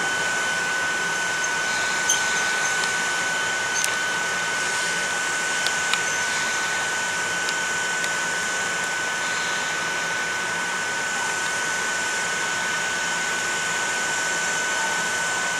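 Steady running of parked electric trains' auxiliary equipment: a constant high whine over an even rushing blower noise, with a few faint clicks in the first six seconds.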